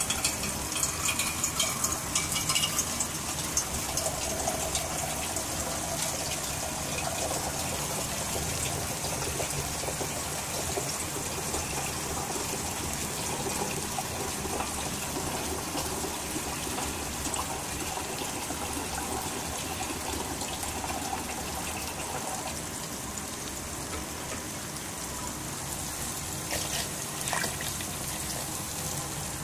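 A pot of black-eyed peas in water boiling on a gas stove, a steady bubbling hiss with fine crackle. A few sharp clicks near the end.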